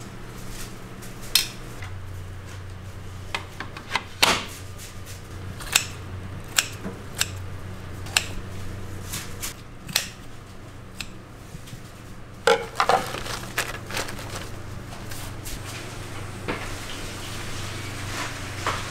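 Metal kitchen utensils clattering and clinking against pans and dishes in irregular sharp knocks, a few every several seconds, over a steady low hum.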